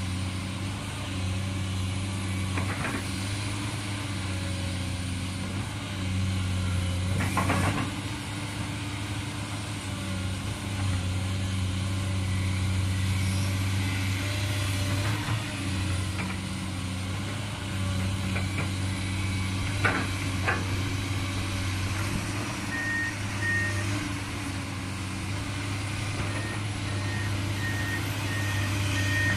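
Komatsu PC200-8 excavator's six-cylinder diesel engine running steadily as it digs, with a few knocks along the way. Near the end a high-pitched warning alarm starts beeping in quick, even pulses.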